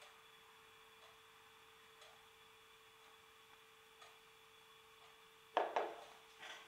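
A faint steady hum with light ticks about once a second; near the end, two sharp knocks in quick succession and a softer one as the glass oil bottle is set down.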